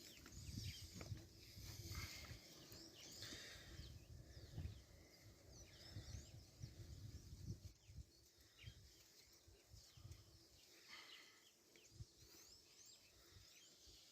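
Near silence outdoors: scattered faint bird chirps over a low rumble.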